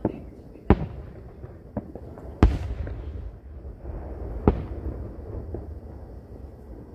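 Aerial fireworks bursting: about half a dozen sharp booms at uneven intervals, the loudest about two and a half seconds in.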